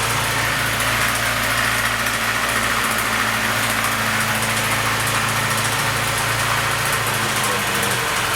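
Classic Lada (VAZ) four-cylinder engine idling steadily at operating temperature, with its timing chain rattling. The rattle is the sign of a missing timing-chain damper.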